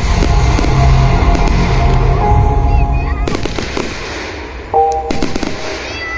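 Fireworks going off in a string of sharp bangs and crackle over loud music. The music's heavy bass fades out about three seconds in, and a new piece's held notes start near the end.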